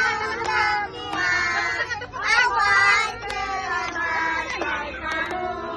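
A group of voices, children among them, singing together, with held and gliding notes and some talk mixed in.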